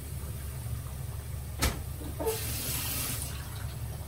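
Battered cod fillet deep-frying in oil at about 180 °C, bubbling and sizzling over a low steady hum. A sharp knock comes about a second and a half in, then a louder burst of sizzling hiss lasting about a second.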